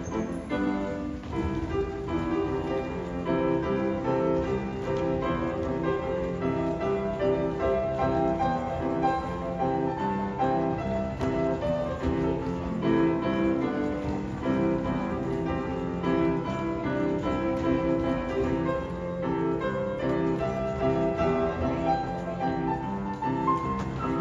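Piano music playing steadily, a run of repeated chords and melody notes with no singing.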